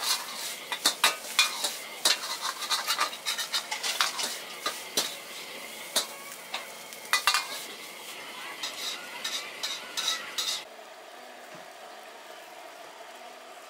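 Metal ladle clanking and scraping rapidly against a wok while stir-frying, with the food sizzling. About eleven seconds in, the clanking cuts off abruptly and gives way to a quieter steady hiss.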